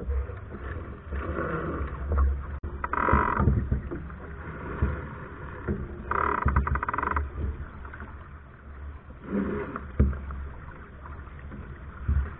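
Wind buffeting a deck-mounted camera microphone and water rushing past the hull of a Soling keelboat under sail, a steady low rumble with louder swells of rushing noise several times.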